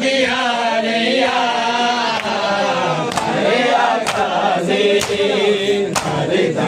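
A group of men chanting a noha, a Shia mourning lament, in unison. From about halfway through, sharp slaps of hands on bare chests (matam) keep time about once a second.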